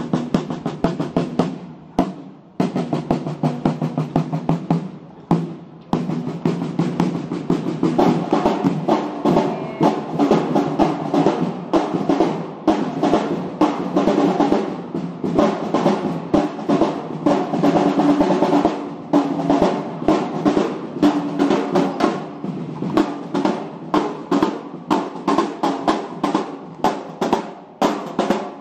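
Marching snare drums playing fast rolls and rhythmic patterns, with a couple of short breaks in the first few seconds before continuing steadily.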